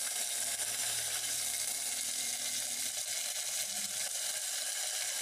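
Tempering of curry leaves, garlic, dried red chillies, cumin and black pepper sizzling steadily in hot oil in a small steel pot.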